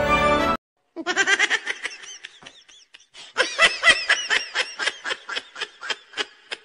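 A burst of high-pitched laughter: a quick run of short, bouncing laughs that lasts about five seconds, with a brief dip in the middle. It starts after a short cut-off of music.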